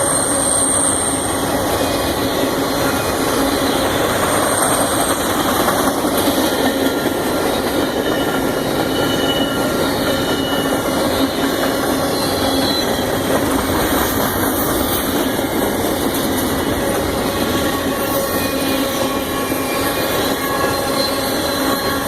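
Union Pacific train's cars rolling past with a steady, loud rolling rumble of wheels on rail, and a brief faint high wheel squeal near the start.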